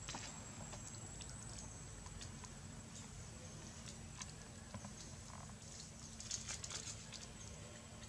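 Faint, scattered crinkling and clicking of a paper wrapper handled by a baby macaque, with a brief flurry of crackles about six to seven seconds in.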